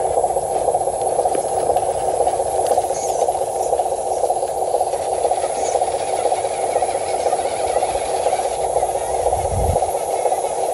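Scale RC dump truck's electric drive motor and gearbox whirring steadily as the loaded truck climbs a dirt mound, with a low thump near the end.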